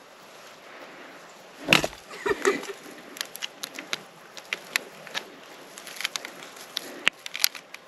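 Dry pine needles and twigs crackling in scattered sharp clicks as a hand pushes through brush, with one louder knock about two seconds in.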